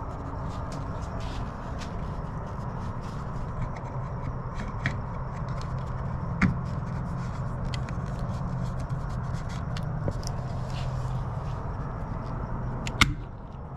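Hands fitting a plastic video doorbell onto its wall bracket: light scrapes and taps, a sharp click about halfway through and a louder click near the end, over a steady low background hum.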